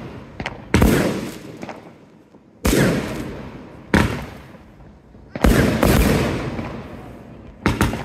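Aerial firework shells bursting: five loud bangs about one to two seconds apart, each fading away over a second or so, with a few smaller cracks in between.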